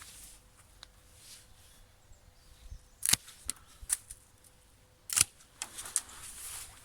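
Hand secateurs cutting elder stems: two sharp snips about two seconds apart, each followed by a few lighter clicks, with rustling of branches in between.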